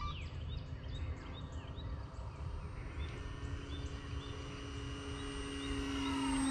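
Electric RC airplane motor and propeller giving a steady whine that grows louder near the end as the plane comes closer. Birds chirp over it in the first half.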